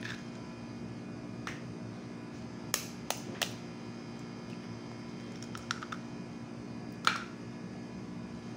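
Eggs being cracked into a mixing bowl: a few sharp taps, three close together about three seconds in and the loudest near the end, over a steady low hum.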